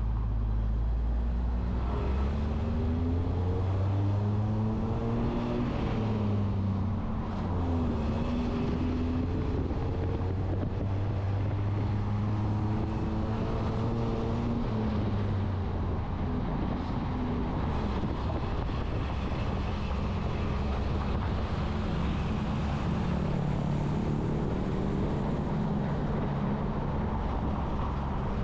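Road traffic: motor vehicle engines running steadily, their pitch rising and falling again and again as they accelerate and change gear.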